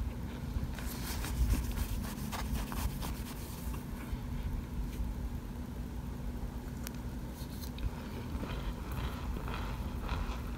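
A spoon scraping and crunching through oven-baked cornstarch chunks in a pan, in scattered bursts, over a steady low hum.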